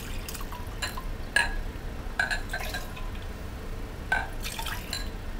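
Lemon juice and clam juice poured back and forth between two drinking glasses, the liquid splashing into the glass, with several sharp clinks of glass against glass.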